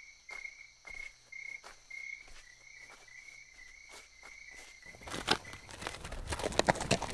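Crickets chirping faintly in a steady repeating pulse. About five seconds in, horse hooves start clopping on hard ground, louder than the crickets.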